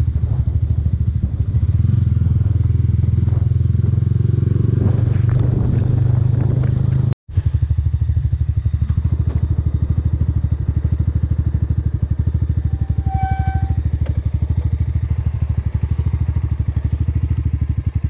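Mahindra Mojo 300's single-cylinder engine running steadily while riding, heard from on the bike. The sound drops out for an instant about 7 seconds in, and a short beep sounds about 13 seconds in.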